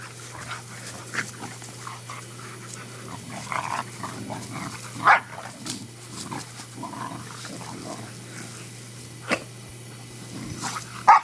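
Two boxer dogs vocalising as they play-fight, with a few short, loud barks: one about five seconds in, one near nine seconds and one at the very end.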